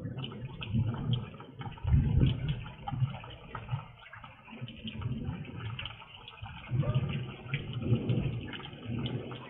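Heavy rain pouring and dripping around a porch, a steady crackly patter heard through a security camera's narrow-band microphone, with low rumbles that swell and fade several times.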